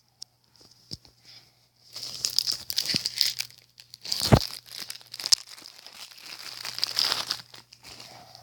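A Pop-Tarts wrapper crinkling and tearing open, with a heavier bump about four seconds in.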